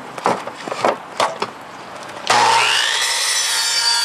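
A few knocks as the board is set in place, then a Ryobi 10-inch miter saw is switched on about two seconds in; its motor spins up with a rising whine that settles into a steady high whine as the carbide-tipped blade is brought down into a 2x6.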